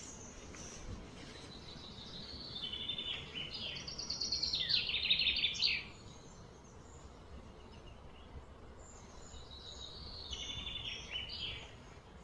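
A bird singing fast, high trills in two phrases: a longer, louder phrase from about two and a half seconds in to about six seconds, and a shorter one about ten seconds in.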